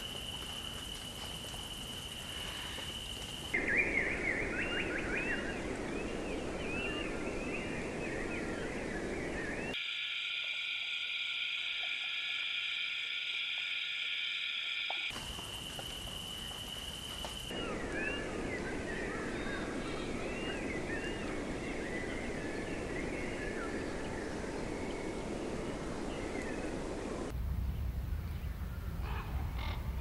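Spliced nature-sound soundtrack: a chorus of quick chirping animal calls over a steady rushing hiss. It cuts abruptly between parts: a steady high tone near the start and again in the middle, a stretch of steady layered whining tones about ten seconds in, and a lower rumbling section near the end.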